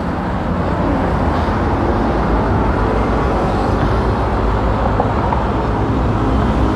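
Steady road traffic noise of cars and other motor vehicles running along a busy city road.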